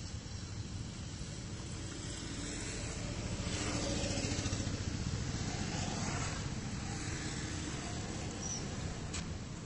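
A motor vehicle passes by: a low engine and road rumble swells to its loudest about four or five seconds in, then fades back to a steady background hum.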